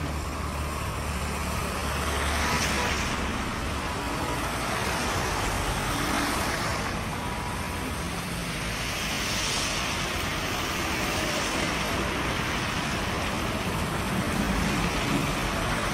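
Road traffic on a wet road: cars and minibuses driving past, their tyres hissing on the wet asphalt, the hiss swelling and fading as each goes by, about three times, over a low engine hum.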